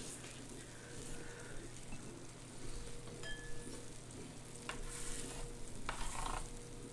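Food cooking on an electric hot pot and grill: a steady crackling sizzle, with a few sharp clicks of utensils on the pan about five and six seconds in.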